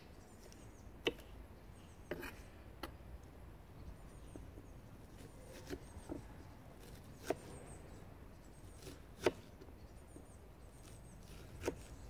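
Kitchen knife chopping red onion on a wooden cutting board: about eight single, sharp knocks at uneven intervals of roughly half a second to two seconds.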